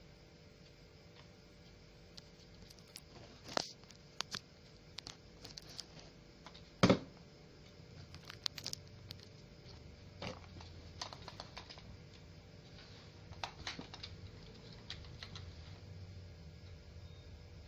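Handling noise: irregular light taps and clicks, with one louder knock about seven seconds in.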